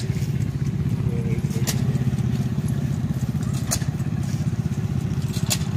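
An engine running steadily with a fast, even low pulsing, and sharp clicks about every two seconds.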